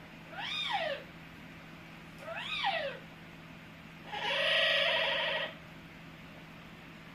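Amazon parrot making three calls, the first two short and rising then falling in pitch, the third, about four seconds in, longer and harsher.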